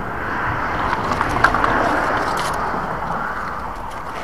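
Tyre noise from a car passing on the road over the bridge, swelling about two seconds in and then fading. Light clicks and scrapes come from the rope being handled against the concrete railing.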